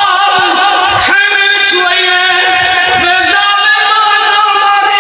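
A man's voice singing a lament through a microphone, holding long, drawn-out notes with a slight waver and changing note a few times.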